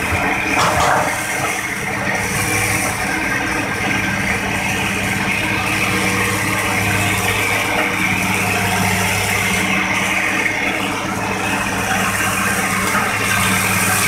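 Hitachi hydraulic excavator's diesel engine running steadily while the machine works its boom and bucket in swamp mud.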